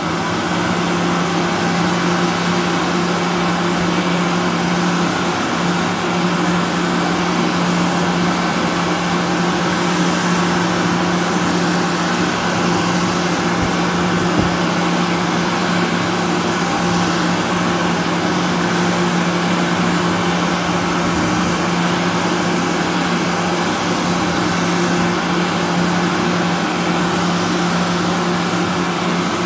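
Bobrick AirCraft automatic hand dryer running: a steady rush of blown air over a constant low hum from the blower motor.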